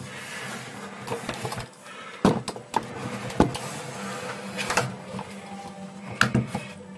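Several sharp knocks and clicks, the loudest near the middle and one near the end, over a steady low hum.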